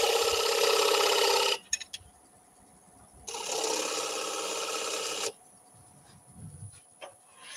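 A thin pointed turning tool scoring a small mark into the centre of a wooden bowl's base as it spins on a lathe: two cuts of about two seconds each, a steady fine buzzing scrape, the second cut quieter than the first.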